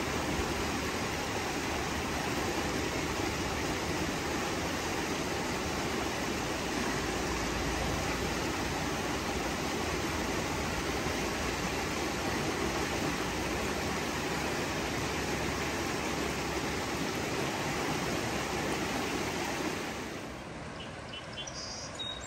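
Creek water rushing in a steady, even wash. It drops quieter near the end.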